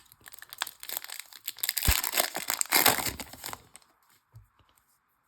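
Foil trading-card pack wrapper crinkling and tearing as it is ripped open, loudest in the middle and dying away a little over halfway through.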